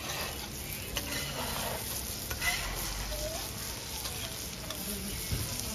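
Hot oil sizzling steadily in a large pot as a batch of curly fries deep-fries, with a few light clinks as a wire-mesh skimmer scoops the fries out.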